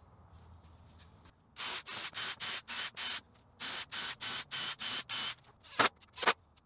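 A cordless drill driving wood screws into cedar decking boards: two runs of short bursts, about four a second, with a high whine in each, then a couple of sharper clicks near the end.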